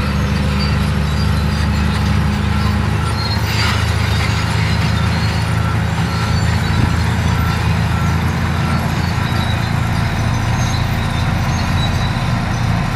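Crawler bulldozer's diesel engine running steadily with a deep drone. A faint high beep repeats about twice a second through most of it, the reverse alarm of the dozer backing up.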